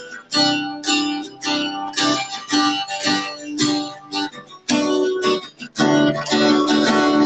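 Acoustic guitar playing: strummed chords and picked notes, about two a second, each ringing on after it is struck.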